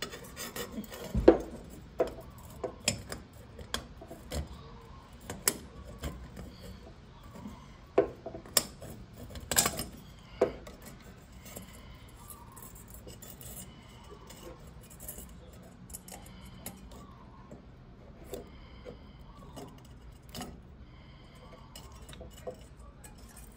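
Irregular metallic clicks, taps and rattles of a hand tool and wiring against the inside of an MG TD's metal headlight shell as the wires are worked into place. The knocks come thick in the first ten seconds or so, then thin out to small, fainter taps.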